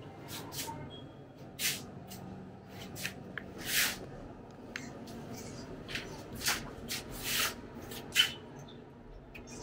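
Irregular short scuffing and rubbing noises, a dozen or so brief strokes at uneven spacing, the loudest about four and eight seconds in.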